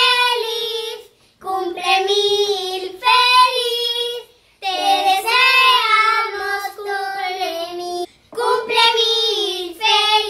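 Children singing a song together, in sung phrases with short breaks between them.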